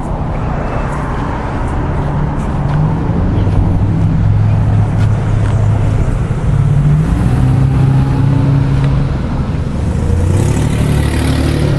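Road traffic: motor vehicle engines running and passing, with a low engine note that steps up and down as vehicles pull away. A brief hiss near the end.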